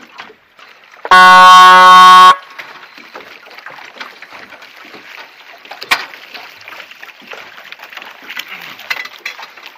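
A single air horn blast of about a second, very loud and distorted, sounded from the boat as a race signal to the sailing dinghies. After it comes a low wash of water lapping and wind noise, with a sharp click about six seconds in.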